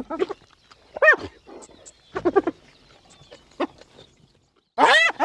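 Hyena calling in short, pitched yelps, each rising and falling in pitch, in several clusters about a second apart, the loudest group near the end.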